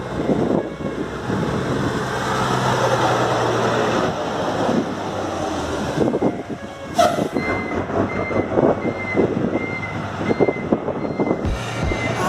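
Ford truck engines running loudly, with a sharp knock about halfway through. Over the second half a short beep repeats about twice a second.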